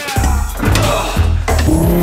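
Background music with a heavy bass beat, about two pulses a second.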